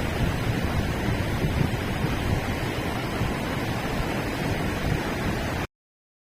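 Haputkhai River water rushing steadily, with wind buffeting the microphone; the sound cuts off abruptly near the end into silence.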